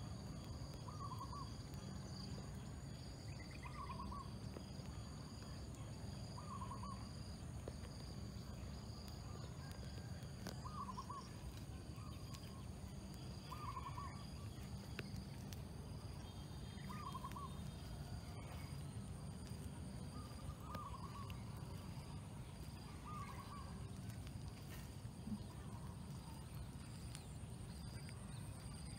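An animal repeats a short call about every three seconds over a steady high drone of evening insects and a low rumble.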